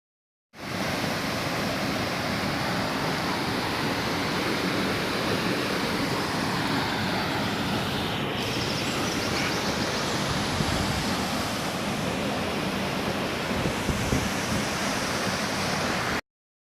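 Waterfall rushing: a steady, even wash of falling water that starts abruptly about half a second in and cuts off sharply near the end.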